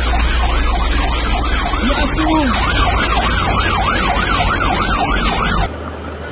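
Emergency vehicle siren on a fast yelp, sweeping up and down about three times a second over a heavy low rumble. It cuts off abruptly near the end, leaving quieter outdoor noise.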